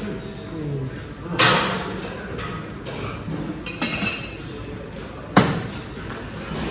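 Dumbbells clanking in a weight room: a few sharp metal knocks, the loudest about five seconds in.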